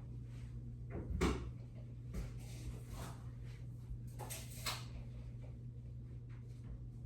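A few light knocks and clunks, the clearest about a second in and another in the second half, over a steady low hum.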